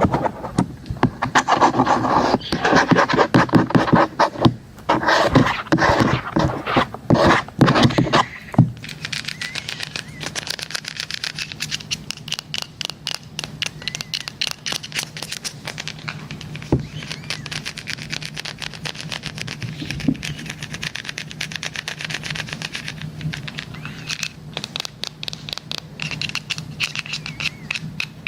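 ASMR scratching and rubbing on a device for about eight seconds, then rapid, even tapping on it over a steady low hum.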